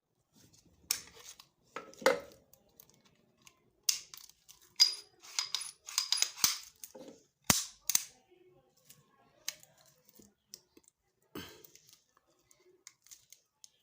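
Sharp metallic clicks and clacks of a Zegana Sport 9mm pistol being handled, its steel parts knocking and snapping together, some with a brief ring.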